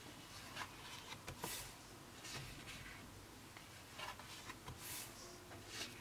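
Heavy 180 g/m² pages of a hardcover Leuchtturm1917 sketchbook being turned and brushed flat by hand: several soft, short paper swishes and rustles.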